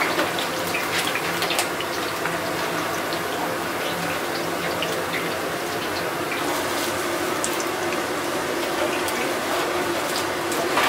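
Hot oil in a commercial deep fryer sizzling steadily with scattered crackles as battered braised pig's trotters fry in wire baskets.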